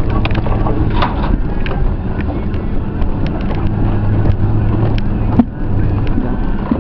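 Off-road 4x4 engine running steadily under load in low range on a rocky trail climb, with frequent sharp knocks and clatter as the vehicle works over rocks. The sound dips briefly about five seconds in.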